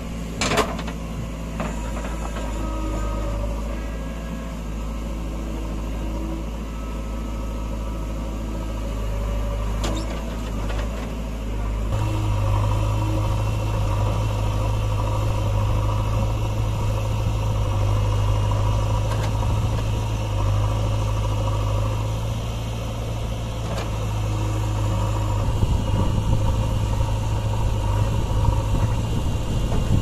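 JCB 3DX backhoe loader's diesel engine running steadily while the backhoe digs and swings soil. The engine gets louder partway through and rougher near the end, with a couple of sharp knocks early on.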